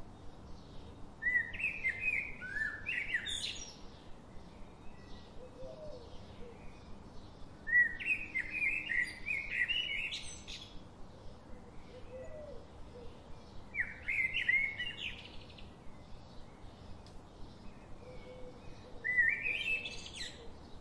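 A songbird singing a short, busy phrase of quick notes, repeated four times about every six seconds, over faint rapid ticking in the background.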